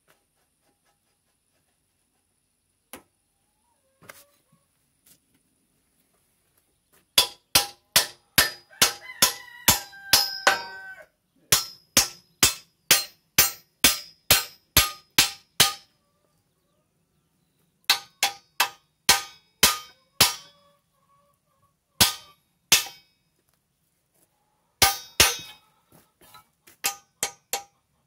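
Hammer striking a steel pivot pin at a hydraulic ram's mounting on a backhoe boom: sharp, ringing metal-on-metal blows, about two a second, in runs of several with short pauses. They start about seven seconds in, after a few faint knocks.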